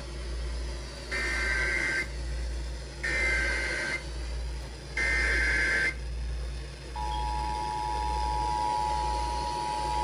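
Emergency Alert System tones opening a new alert. Three one-second bursts of warbling SAME header data come at even two-second spacing, and about seven seconds in the EAS attention signal starts: a steady two-note tone that holds for about three seconds. A steady low hum runs under all of it.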